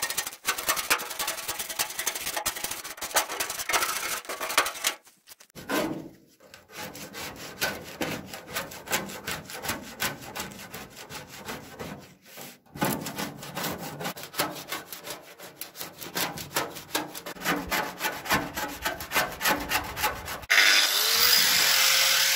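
Hand scraper scraping flaking paint off a tractor's sheet-metal body panel in quick repeated strokes. Near the end it gives way suddenly to a power tool, an angle grinder, spinning up and running steadily and louder.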